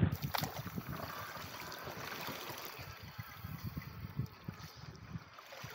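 Choppy water splashing and lapping against a paddleboard as it is paddled, with uneven low thumps and a sharp click just after the start.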